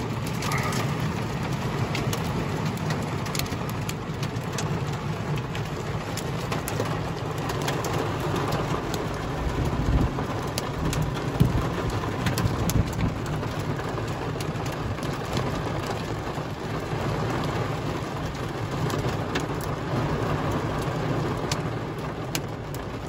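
Heavy downpour, rain hitting the window glass, with frequent sharp ticks of drops striking close by.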